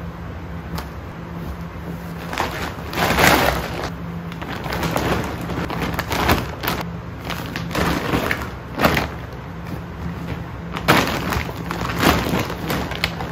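Blue woven polypropylene tote bag crinkling and rustling in irregular bursts as bedsheets are stuffed into it and the bag is handled, with fabric rustling along with it.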